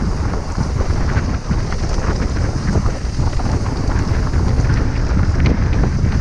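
Wind buffeting the microphone of a camera on a mountain bike descending a dirt trail, over a heavy rumble of tyres on dirt and many small rattles and clicks from the bike.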